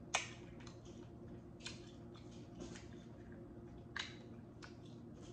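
Sparse, faint wet clicks and smacks of eating and handling seafood close to the microphone, the sharpest just at the start and another about four seconds in, over a low steady hum.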